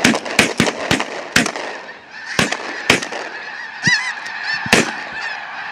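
Shotguns firing in a ragged volley, about eight shots bunched in the first second and a half and then spaced out, over the constant honking chorus of a large flock of snow geese calling overhead.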